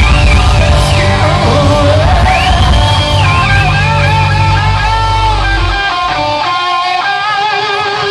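Live rock band playing, led by electric guitar that glides up to high held notes and back down. The bass and drums drop out about six seconds in, leaving the guitar ringing on its own.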